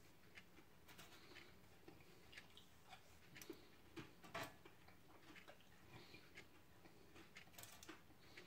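Faint scattered taps and crinkles of oven fries being picked off a parchment-lined baking sheet by hand, with a couple of slightly louder clicks about four seconds in.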